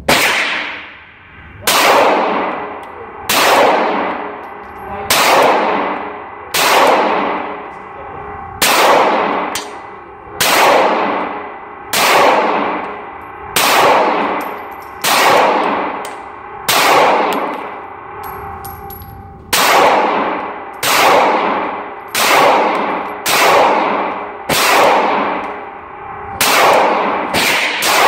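Smith & Wesson M&P 9mm pistol fired in slow, single shots, about one every one and a half to two seconds with a longer gap a little past the middle. Each report rings out and dies away in the echo of an indoor range.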